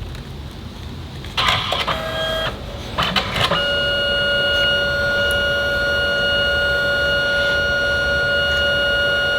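Canon Selphy CP1200 dye-sublimation photo printer's mechanism running: clatter and clicks around one and a half and three seconds in, then a steady high whine from about three and a half seconds on. The paper cassette is empty in the middle of a batch print, and the printer soon reports no paper.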